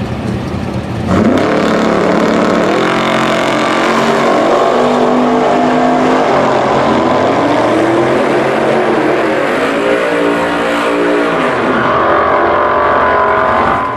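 Two drag cars launch side by side about a second in: a Dodge Challenger SRT Demon with its supercharged 6.2-litre Hemi V8, and a classic muscle car. Both run at full throttle, the engine pitch climbing and dropping back at each gear shift as they pull away down the strip. The sound fades out near the end.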